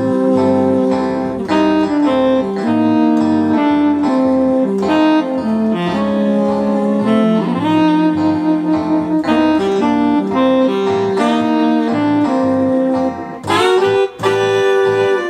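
Electronic keyboard playing a tune: held melody notes over chords with a pulsing bass line, briefly dropping out a little before the end.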